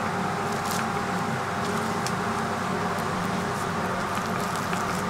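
Steady mechanical hum of kitchen ventilation, with a few faint crackles as crispy fried onion bhajia pieces are picked up and pressed into a bun.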